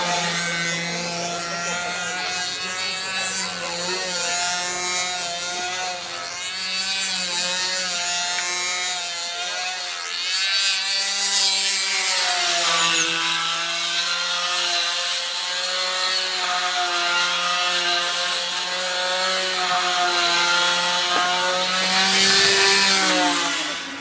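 Control-line aerobatic model aircraft engine running in flight, a high continuous buzz whose pitch rises and falls every few seconds as the plane circles and manoeuvres.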